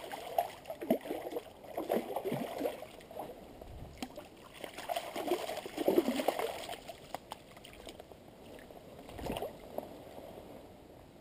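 A hooked brown trout thrashing and splashing in shallow stream water, in irregular bursts that die down after about seven seconds. A single dull thump comes near the end.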